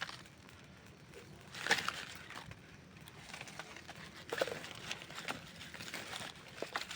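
Campfire crackling: irregular pops and snaps of burning wood over a faint steady hiss, with a louder flurry of pops about a second and a half in and another around four seconds in.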